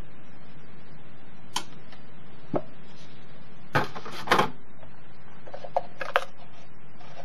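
Scattered small clicks and knocks of kitchen items being handled, with a cluster of clatter a little past the middle and a few more clicks near the end, over a steady low hum.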